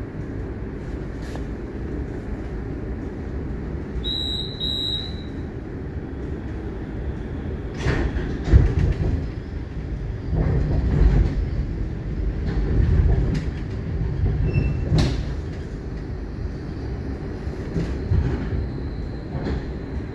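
Moderus Alfa tram running on its rails with a steady low rumble. Two short high beeps sound about four seconds in. From about eight seconds in the rumble grows louder, with a few sharp knocks.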